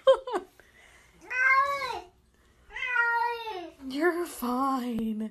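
Wet cat in a bathtub meowing loudly and repeatedly in drawn-out, word-like cries, protesting its bath. About four meows; the last is the longest and sinks to a low pitch at its end.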